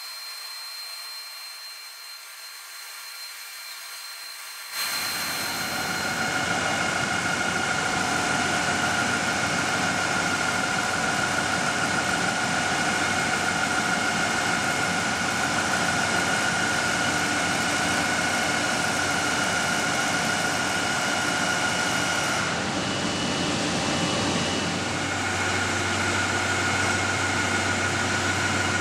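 Large machine tools running in a factory hall: a steady mechanical hum with a constant whine, which comes in suddenly about five seconds in after a quieter hiss.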